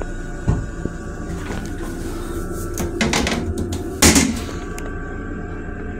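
Toilet lid on a railcar's stainless-steel toilet being handled with a few light clicks, then dropping shut onto the seat with a loud bang about four seconds in. A steady low rumble runs underneath.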